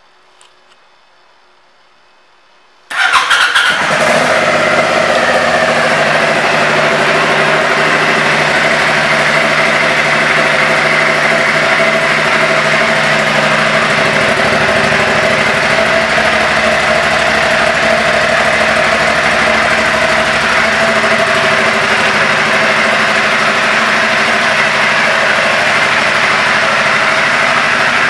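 2012 Aprilia Shiver 750's V-twin engine starting about three seconds in, catching at once, then idling steadily.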